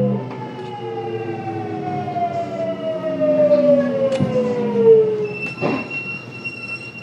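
Kintetsu 1031 series train's Hitachi GTO-VVVF inverter and traction motors whining in a steadily falling pitch as the train brakes into a station, over wheel and rail noise. The falling whine ends about five seconds in, followed by a click and a steady high tone.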